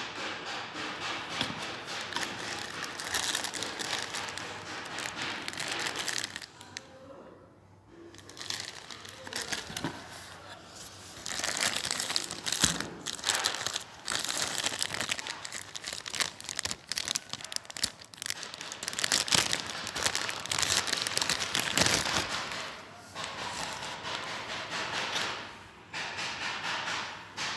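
Plastic mailer bag and packaging crinkling and rustling in irregular bursts as they are handled, with a quieter spell about a quarter of the way in.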